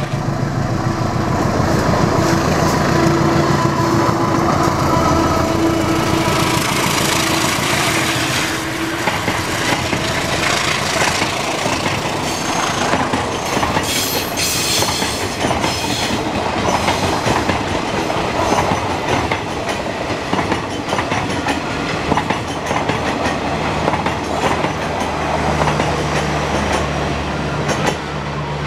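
A GE CC 203 diesel-electric locomotive passing close under power, its engine note strongest in the first seven or eight seconds. Then comes the clickety-clack of its train of ex-Argo Anggrek passenger carriages rolling by on a curve, with a brief high-pitched screech from the wheels about halfway.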